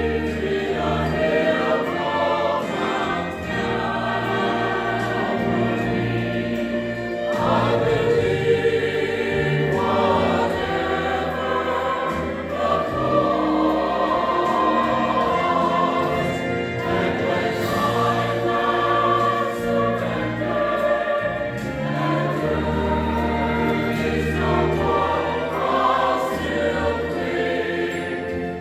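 Mixed church choir of men's and women's voices singing an anthem in parts, the sound continuous throughout.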